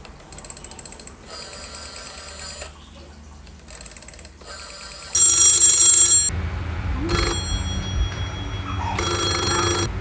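1970 rotary dial telephone being tested: the dial clicks as it spins back, then the phone's bell rings in bursts, a loud ring of about a second near the middle followed by shorter rings.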